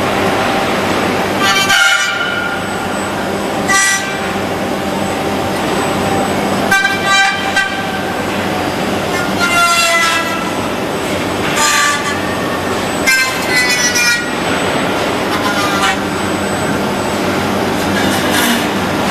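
Six-axis industrial robot cell cutting and finishing a plastic car dashboard: a steady machine hum, broken every couple of seconds by short, high, pitched whines.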